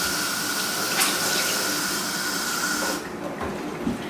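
Kitchen faucet running into a stainless steel sink, with water splashing over hands and dishes under the stream. The water stops suddenly about three seconds in, leaving a few soft knocks.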